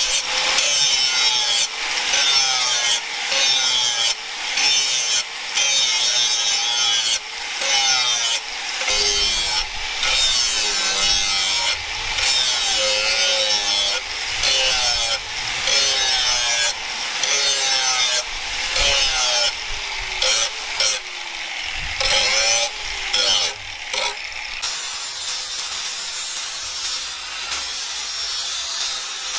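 Angle grinder with an abrasive disc grinding the bevel of a forged steel knife blade in repeated passes, its pitch wavering up and down with each pass. Near the end the sound changes to a steadier, smoother run of a second angle grinder sanding the blade.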